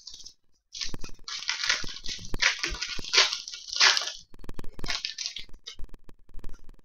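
Crinkling of a hockey trading-card pack wrapper as it is handled, in a dense run of rustles from about a second in to about four seconds, then a few shorter crinkles.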